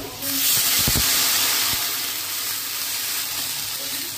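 Water poured into a hot aluminium kadai of oil and fried potatoes, bursting into a loud sizzle about a quarter second in that eases gradually as the pour goes on, with a couple of low knocks from the pan. This is the water going in to start the curry's thin gravy.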